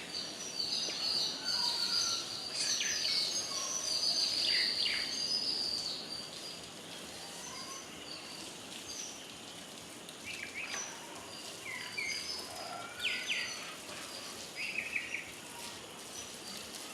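Birds chirping and calling over steady outdoor background noise. The chirping is dense and continuous for the first six seconds, then thins to short, scattered calls.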